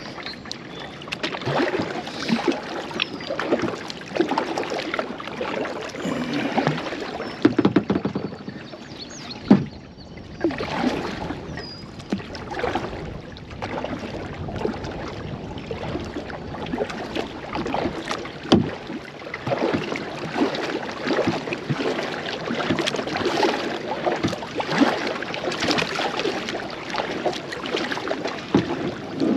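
Double-bladed kayak paddle working steadily through river water, each stroke splashing and dripping, with occasional sharp knocks and one loud knock about nine seconds in. The kayak is being paddled hard upstream against the current.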